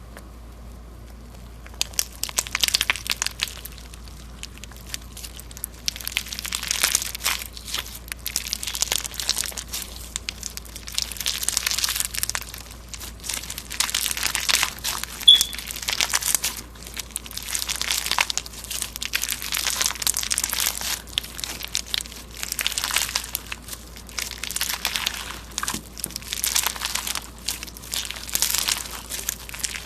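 Slime being squeezed and pressed by hand, giving dense crackling and popping in repeated waves every second or two.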